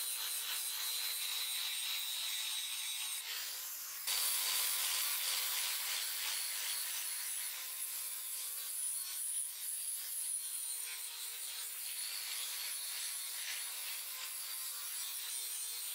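Angle grinder with an abrasive disc grinding the steel of an axe head: a steady high motor whine over a rasping hiss. It dips briefly and starts again about four seconds in.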